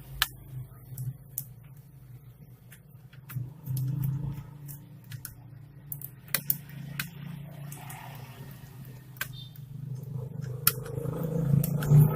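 Scattered sharp clicks and taps of small parts and tools being handled on a work surface, with a louder knock near the end, over a steady low hum.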